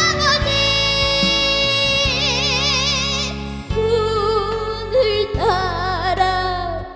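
A young girl singing a slow trot ballad over band accompaniment, holding long notes with wide vibrato.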